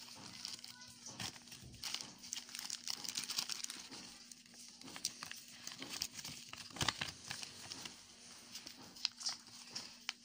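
Glossy plastic packaging of a sterilization card crinkling and rustling as it is opened and handled, an irregular run of crackles with a few sharper ones near the end.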